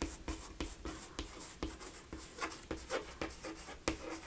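Chalk writing on a chalkboard: a quick, uneven run of short taps and scratches as letters are written.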